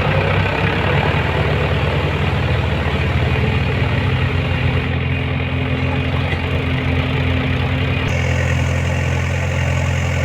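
Heavy-machinery diesel engine running steadily with an even low hum.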